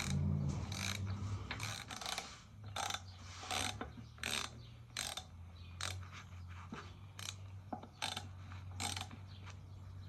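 Hand ratchet wrench clicking in short strokes, about one to two clicks a second, working loose tight bolts on a Chevy 327 V8's top end.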